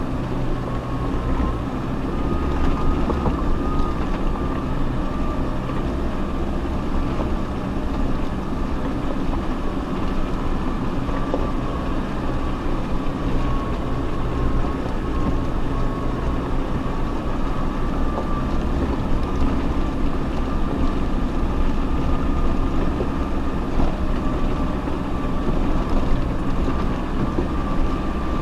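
Off-road 4x4's engine and drivetrain running steadily while driving slowly over a rough track, a low rumble with a thin steady whine above it.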